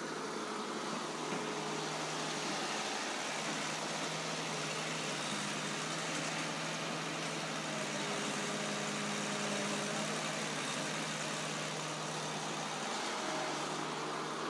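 Heavy diesel engines of an excavator and a dump truck running steadily, with an even low hum.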